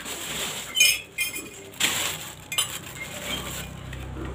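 Plates and cutlery clinking during a meal: a few short, light clinks.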